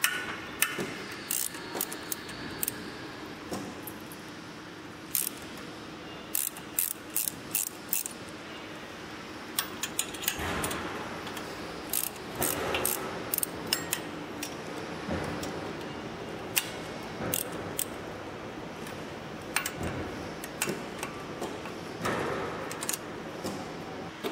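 Metal clicking and clinking from tools and parts being worked by hand on a sack-sealing machine's mechanism, in scattered single clicks and quick clusters, over a steady low hum.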